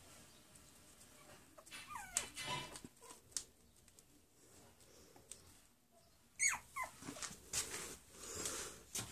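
Chihuahua puppies whimpering and yipping in short high-pitched gliding cries, once about two seconds in and again in a quick run near the end, with scattered light clicks and scuffs between.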